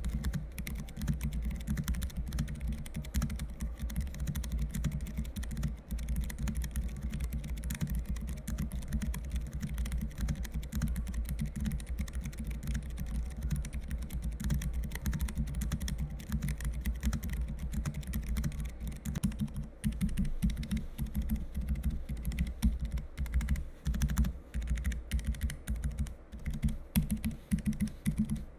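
Typing on a Keychron K3 version 2 low-profile mechanical keyboard with brown tactile switches: a continuous, rapid stream of keystrokes, fairly quiet for a mechanical keyboard.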